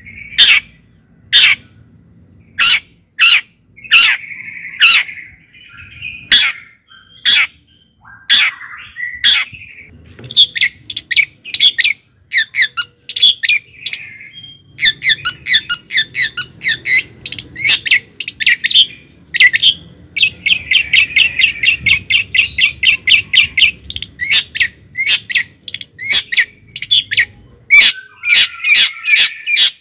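A bird calling: loud, sharp chirps repeated about once a second, then coming faster in quick runs with a stretch of dense chattering.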